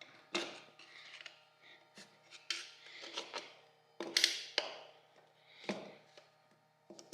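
Metal clinks, knocks and scraping of TH400 automatic transmission internals being handled and worked loose, irregular, with the loudest clank about four seconds in.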